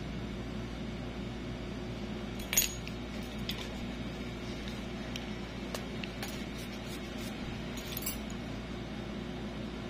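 Small sharp metallic clicks and clinks of steel nail nippers being worked on a toenail, the loudest about two and a half seconds in and a few more near the end, over a steady background hum.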